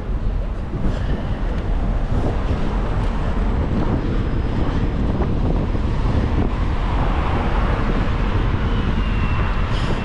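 Wind rushing over the microphone on a moving bicycle, with city street traffic running underneath.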